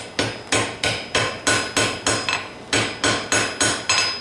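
Hand hammer striking hot mild steel on an anvil in steady, quick blows, about three a second, each blow followed by a metallic ring: forge welding a chain repair link closed.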